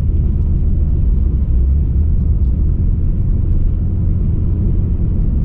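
BMW E34 525i's straight-six engine with tyre and road noise: a steady low rumble heard from inside the cabin while cruising.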